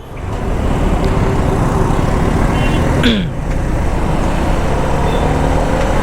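Suzuki Gixxer SF 250 motorcycle pulling away and riding on the road, its engine mixed with wind and road noise. The sound builds over the first second. There is a brief falling tone about three seconds in.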